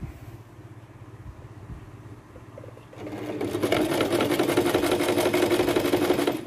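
Sewing machine stitching a Japanese zipper into a dress with a zipper foot. It starts about halfway through, runs at speed with a rapid needle rhythm, and stops near the end.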